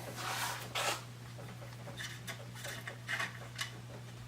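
Light clicks, scrapes and rustles of Ruger Precision Rifle parts being handled during disassembly, in short scattered bursts, over a steady low hum.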